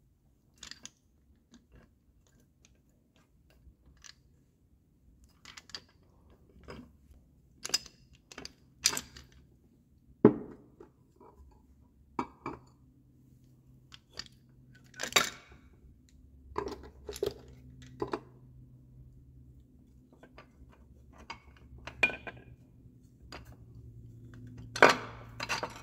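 Steel transmission gears and parts clinking and clanking as they are pulled by hand from a Gravely 430 transmission case and set down. The knocks come irregularly, the sharpest about ten seconds in and near the end.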